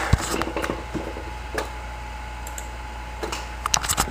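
Scattered light clicks and taps of hands handling things on a desk, several in quick succession near the end, over a faint steady electrical hum.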